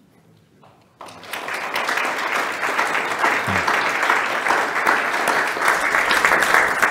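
Congregation applauding, starting about a second in and thinning out near the end.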